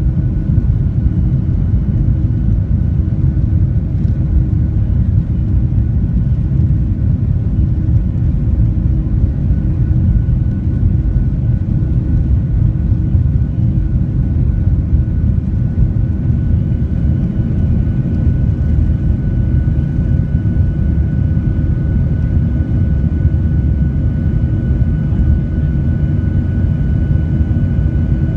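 A Boeing 737-900ER's CFM56-7B turbofan engines at takeoff thrust, heard from inside the cabin over the wing: a loud, steady rumble with a thin, steady whine, through the takeoff roll and into the initial climb.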